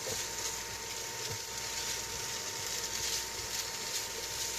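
Pre-cooked chicken breast strips sizzling as they reheat on an electric cooker: a steady hiss with a faint, constant high hum underneath.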